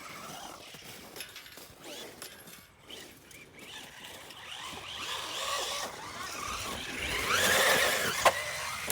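Traxxas Rustler 4x4 VXL RC truck's brushless motor and drivetrain whining as it spins up and accelerates on a low-traction surface, the pitch rising in the second half. A single sharp click near the end.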